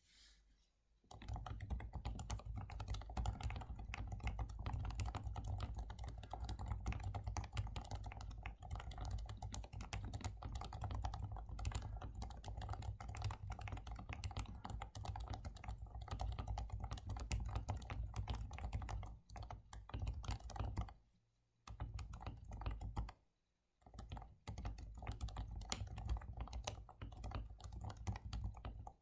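Continuous fast typing on a Leopold FC660C Topre electrostatic capacitive keyboard, its lubed switches muffled by Keyclack silencing rings, with a strong low thud from a very hollow desk. The typing starts about a second in and pauses briefly twice near the end.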